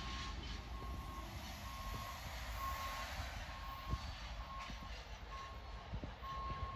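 A vehicle's backup alarm beeping, about one beep a second, over a low rumble.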